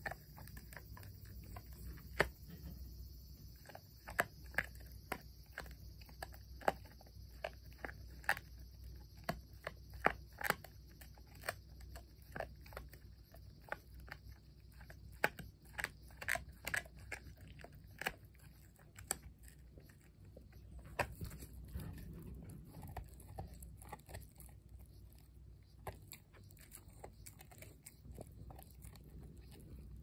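Pit bull terrier puppy gnawing a hard chew treat held in a hand: irregular crunchy clicks of teeth on the chew, thick through the first half and sparser near the end, over a low steady hum.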